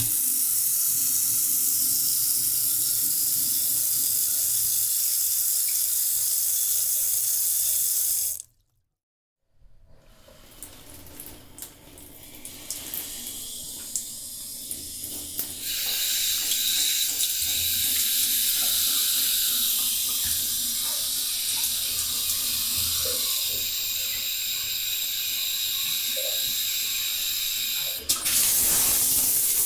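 Water running from a bathroom shower or tap into a bathtub: a steady full hiss that cuts off about eight seconds in. After a second of silence the water comes back quieter and uneven, with small clicks, and builds to a steady full flow again about halfway through.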